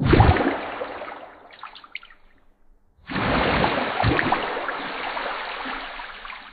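Splashing, rushing water in a stainless steel shrimp-washing trough. It comes in two spells of about three seconds each: each starts suddenly and loud, then fades away.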